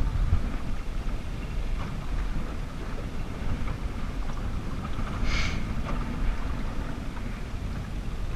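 Wind buffeting the microphone over the steady wash of a small boat moving through choppy water, with one short high-pitched sound about five seconds in.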